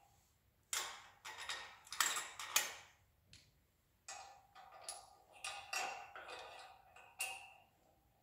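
Metal hand tools and steel bolts clinking and rattling in a string of short knocks, several with a brief metallic ring, as a wrench is worked on front suspension hardware.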